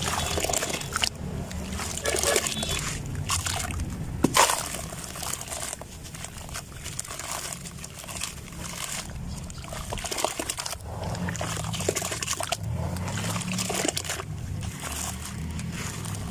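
Clumps of wet sand or mud crumbling and breaking up in water, with irregular crackles, sloshing and splashes, and one sharper knock about four seconds in.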